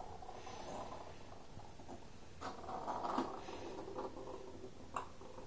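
Faint scattered taps and scratches, a cat's paws and claws on a laminate floor as it walks and sniffs around, over a low steady hum.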